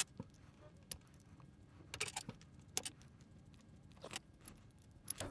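Faint, scattered clicks and ticks of small 3D-printed plastic parts being handled and hand-drilled with a pin vise, irregularly spaced with a small cluster about two seconds in.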